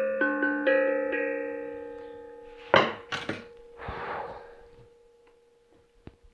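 Handmade steel tongue drum (glucophone) struck with a mallet: a few ringing notes in the first second that slowly fade. About three seconds in comes a sharp thunk, the loudest sound, followed by a couple of short rustling noises.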